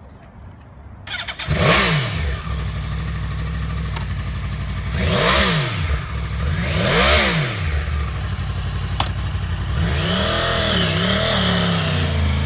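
2009 Yamaha R1's 998cc crossplane inline-four starting up about a second in with a blip as it catches, idling, and revved twice in quick blips. Near the end it runs under light throttle as the bike pulls away at low speed.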